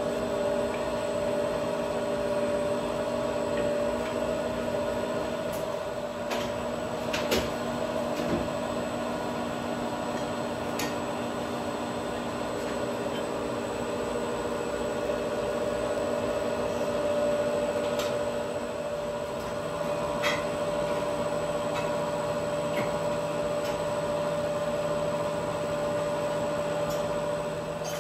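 Large metal lathe running steadily with a custom alloy wheel spinning in its chuck: a steady gear hum with a few light clicks, a lower hum joining about two-thirds of the way through.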